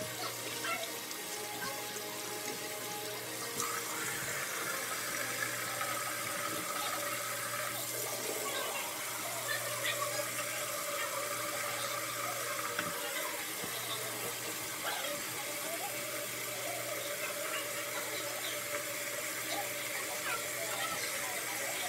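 Water running steadily from a bathroom sink tap, with background music underneath.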